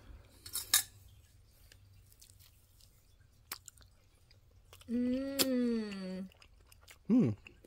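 A person tasting ice cream with faint mouth and spoon noises. About five seconds in comes a long, appreciative hummed "mmm" that sags slightly in pitch, followed near the end by a short "mm".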